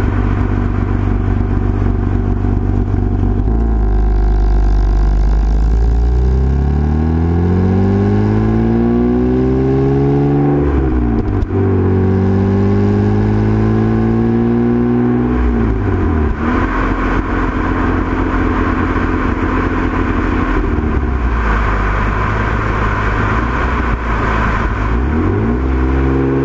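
Mitsubishi Eclipse engine and exhaust under acceleration, climbing in pitch through the gears. The pitch drops sharply at upshifts twice around the middle, then holds steady at cruise and climbs again near the end.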